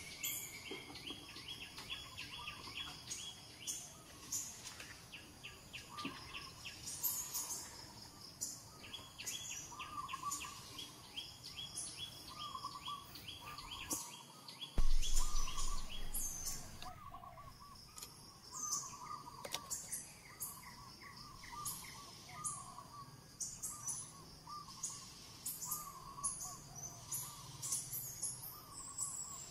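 Many birds chirping and calling, with rapid trilling runs and repeated short calls. About halfway through, a sudden loud low thump and rumble that dies away over a couple of seconds.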